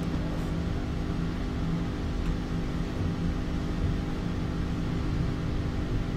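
Steady low hum with a hiss of room noise, with no speech.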